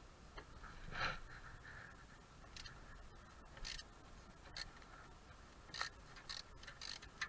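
Hand tools working the 10 mm bolts on a loose exhaust heat shield: faint scattered metallic clicks and scrapes, the loudest about a second in and again near six seconds.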